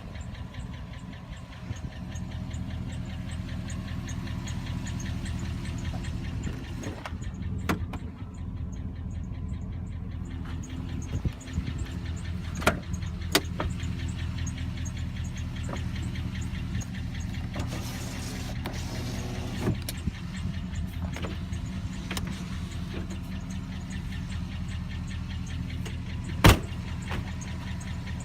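2007 Chevrolet Silverado 1500 pickup engine idling steadily with a fast, even ticking, the sign of bad lifters with no oil pressure. A few sharp clicks stand out over it, the loudest near the end.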